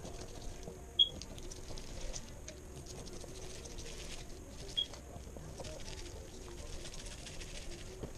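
Knife cutting a pike fillet off the carcass on a plastic-wrapped table: soft scraping and crinkling of the wrap. Two short high chirps break through, a loud one about a second in and a softer one near five seconds.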